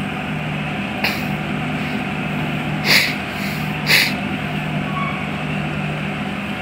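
Steady low engine drone, with three short hissing bursts: one about a second in and two more about three and four seconds in.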